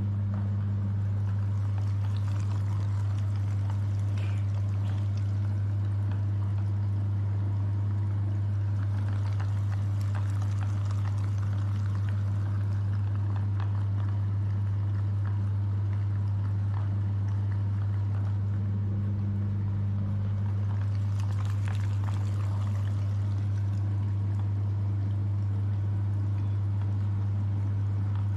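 Electric meat grinder running with a steady low hum while jelly is pushed through it, with irregular wet crackling on top.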